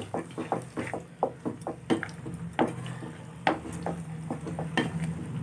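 A spatula stirring thick paneer masala gravy in a non-stick pan, with irregular clicks and scrapes against the pan. A steady low hum runs beneath.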